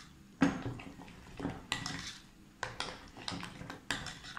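Spoon stirring a thick hung-curd and cream-cheese mixture in a glass bowl, knocking and scraping against the glass several times, about once a second.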